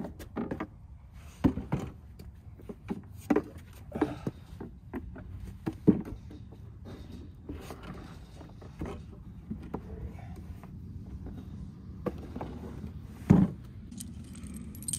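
Irregular hollow knocks, thumps and scrapes of a plastic automatic livestock waterer being tipped, set down and shifted into place on a concrete pad, with the loudest knock near the end.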